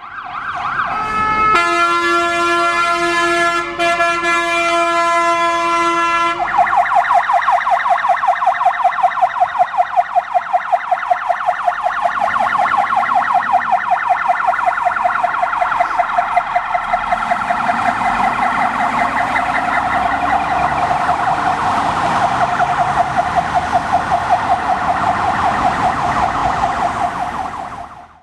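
Fire engine turning out on an emergency call. A steady multi-tone horn sounds for about five seconds, then a fast warbling siren repeats several times a second, with the truck's diesel engine running underneath from about midway.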